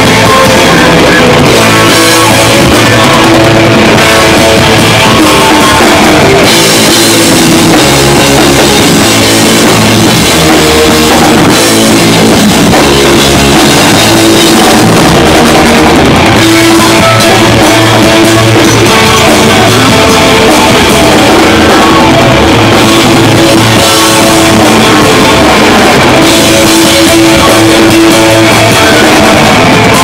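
A heavy metal band playing live: distorted electric guitar, electric bass and a pounding drum kit with crashing cymbals, recorded from right on the stage. It is loud and dense throughout, pushed close to full scale.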